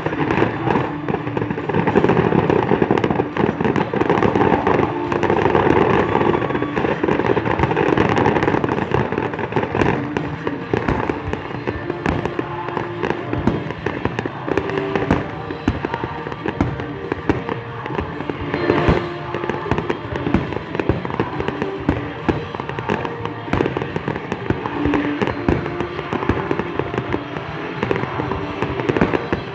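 Fireworks exploding in a dense, continuous barrage of bangs and crackles, with music playing underneath.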